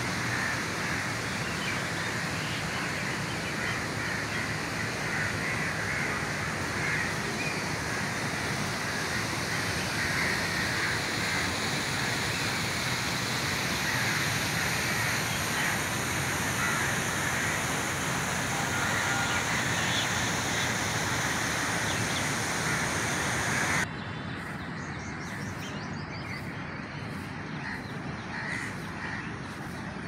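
Crows cawing over a steady background rush. About three-quarters of the way through, the background drops abruptly to a quieter, duller ambience.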